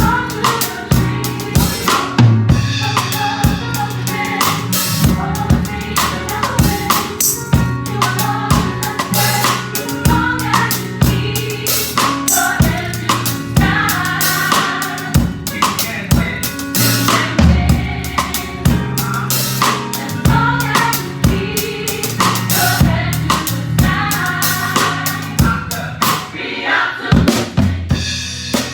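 Drum kit playing a busy groove, with kick drum, snare and rimshots, over the rest of a live gospel song's music.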